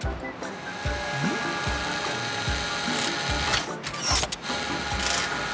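Cartoon factory-machine sound effects: mechanical ratcheting and clicking as a robot claw arm works, over background music with a steady low beat. A brief hissing burst comes about three and a half seconds in.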